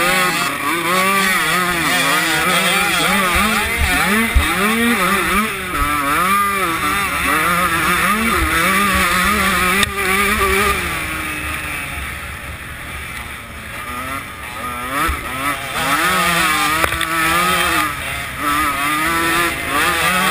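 A 125cc two-stroke motocross bike's engine racing on a dirt track, its revs rising and falling again and again as the rider works the throttle and gears. It runs quieter for a few seconds in the middle before climbing again, with a few sharp knocks along the way.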